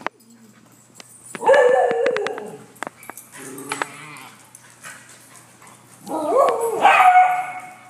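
Dogs barking in two long, drawn-out bouts, one about a second and a half in and a louder one near the end that ends on a held, howl-like note, with scattered short clicks between.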